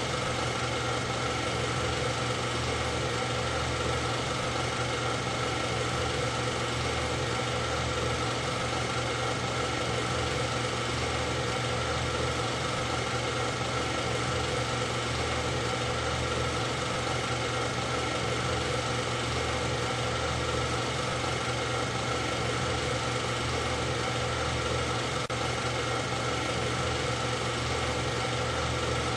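A steady, unchanging mechanical drone with several constant tones and a slow, even pulse in its low end.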